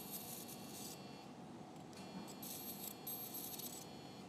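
Electrosurgical unit activated in two spells, the first ending about a second in and the second running from just past halfway to near the end: a high, steady buzzing tone with a faint hiss, as the electrosurgical pen dissects the tissue.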